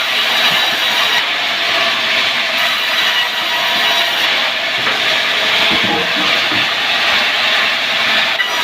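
Sawmill saw running and cutting through timber, a loud steady mechanical noise with a faint whine and no break.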